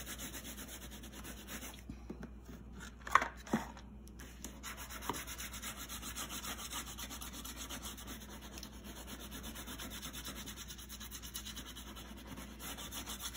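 A Crayola wax crayon colouring in a large area on paper with rapid back-and-forth strokes, a steady scratchy rubbing. A sharp tap stands out about three seconds in.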